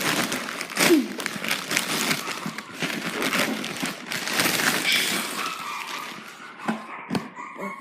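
Shipping package being torn and crinkled open by hand: a dense run of rustling and tearing that dies down after about six seconds, leaving a few clicks.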